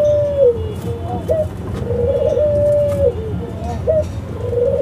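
Caged domestic doves of the pale pied kind sold as 'Australian doves' cooing. Each coo is a rolling note that settles into a long held tone and drops away at the end, repeating about every two and a half seconds, with a short rising note between coos.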